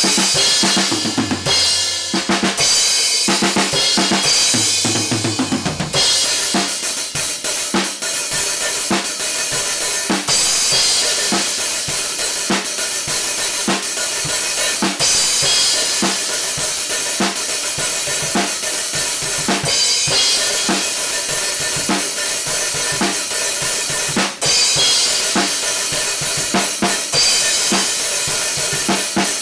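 Acoustic drum kit with Meinl cymbals being played continuously. The opening few seconds differ in pattern; after that the kick and snare settle into a steady beat under a constant wash of cymbals.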